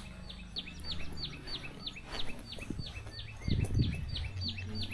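A bird calling the same short, high, falling note over and over, about three times a second. Under it runs a low rumble that swells briefly about three and a half seconds in.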